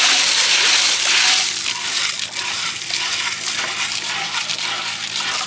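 Lake water sloshing in a clay pot as small freshwater snails are washed, their shells clattering and grinding against each other. The splashing is loudest for the first second and a half, then eases to a steady rattle of shells and water.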